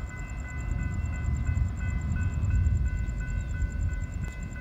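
Low, uneven rumble of a freight train approaching in the distance, mixed with wind on the microphone. Over it run steady high ringing tones with regular short breaks, and a fast, high-pitched pulsing.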